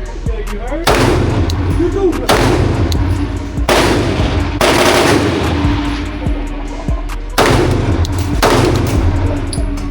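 Six pistol shots from a 9mm Glock, fired about a second apart with a longer pause in the middle, each with a brief ringing tail. Background music plays under them.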